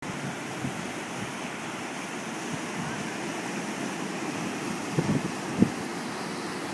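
Storm-driven surf washing over the beach under strong hurricane wind, a steady rushing noise. Wind buffets the microphone in two sharp gusts about five seconds in.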